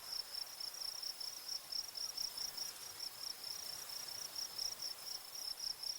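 Crickets chirping in a steady, even run of high pulses, faint under a light background hiss.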